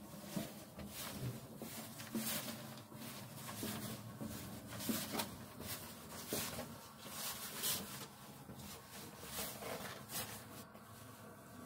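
Footsteps climbing stone stairs, a step roughly every second, stopping near the end.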